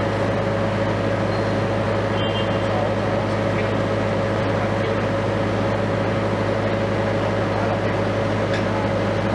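Liebherr LTM 1750-9.1 mobile crane's diesel engine running steadily at a constant speed, with a steady whine over the deep engine hum.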